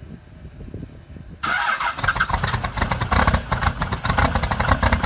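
Cummins diesel in a Dodge Ram pickup on a cold start. A low, quiet chugging jumps suddenly, about a second and a half in, to a loud, rough, rhythmic clatter that carries on.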